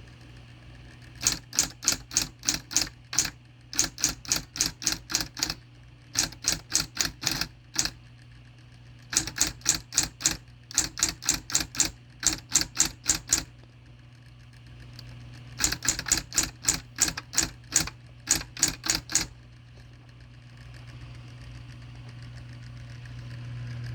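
Singer T-82 electric typewriter being typed on: runs of sharp key strikes, about three a second, broken by short pauses, over a steady hum that grows louder near the end.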